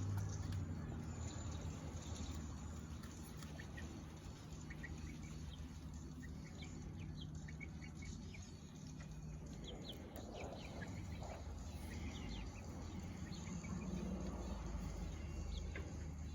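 Young chickens giving scattered short, high peeps and soft clucks, over a low steady hum.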